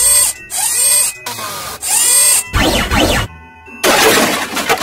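A string of loud, edited-in cartoon sound effects: short bursts of hissy noise with warbling, whistle-like tones sweeping up and down. The burst about halfway through has a deep low rumble, and the longest comes near the end.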